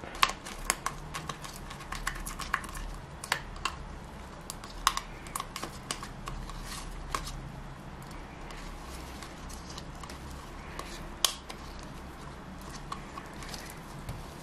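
Wooden popsicle stick stirring a mix of silicone sealant and flour in a small plastic cup, tapping and clicking irregularly against the cup. The taps come thickly for the first five seconds or so, then more sparsely, with one sharp knock about eleven seconds in.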